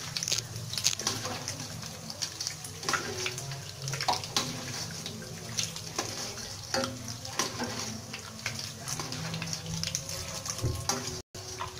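Hot cooking oil sizzling and crackling in a stainless steel wok as a wire-mesh skimmer works through it, lifting out fried galangal crumbs, with oil pouring back through the mesh and frequent sharp clicks and scrapes of the metal skimmer against the pan.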